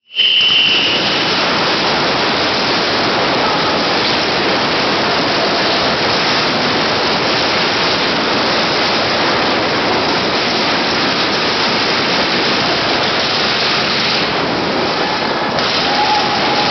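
Many paintball markers firing rapidly at once, the shots merging into a steady, loud hail of noise. A brief high tone sounds in the first second.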